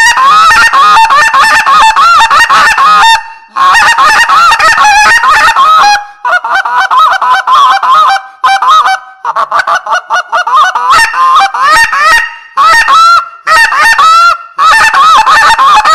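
Coles Carnage Collector short-reed goose call, with a shaved reed and short barrel, blown hard in rapid strings of goose honks and clucks. The notes come in several runs with brief breaks. The middle runs are lower and softer, and high, sharp notes return near the end, showing the call's high and low tones.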